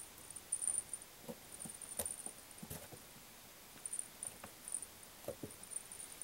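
A kitten scampering and pouncing while playing with a cat teaser: soft, irregular paw thumps and pattering taps, a few slightly louder ones about two seconds in and near the five-second mark.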